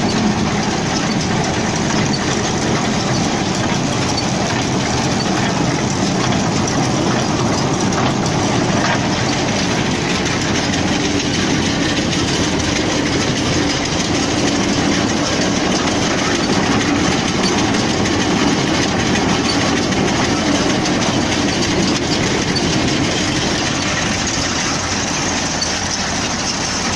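CLAAS Magnum small square baler running empty on a test run, a steady loud mechanical clatter of its drive chains and moving parts, with the driving engine running under it.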